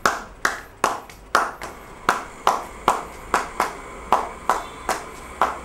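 Hands clapping a steady beat, about two to three claps a second, each clap ringing briefly in a small room.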